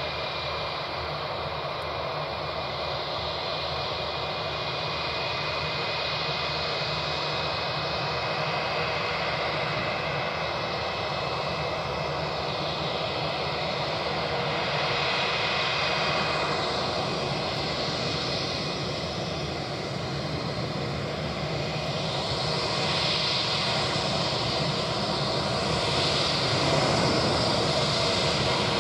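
Airbus A321-231's IAE V2500 turbofan engines at taxi thrust: a steady jet whine over a broad engine rush, growing gradually louder toward the end as the aircraft comes closer.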